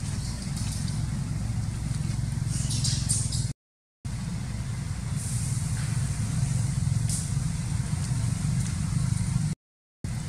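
Steady low background rumble with a faint high hiss, broken twice by a sudden half-second dropout to silence.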